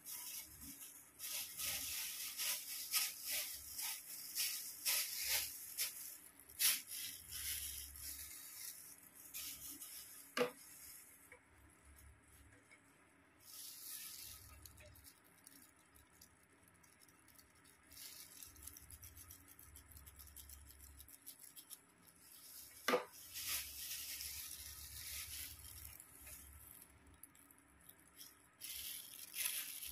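Thin disposable plastic gloves crinkling and rustling as they are handled and pulled on, in bursts of a few seconds with quieter gaps between. Two sharp knocks, one about a third of the way in and one about three quarters of the way in.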